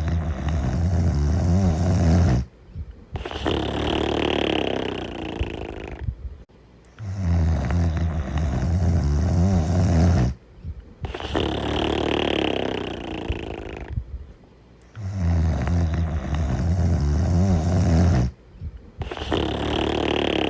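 Loud snoring in a regular cycle, about every eight seconds: a low, buzzing in-breath snore of about three seconds, a short pause, then a higher, breathy out-breath. The cycle runs through almost three times.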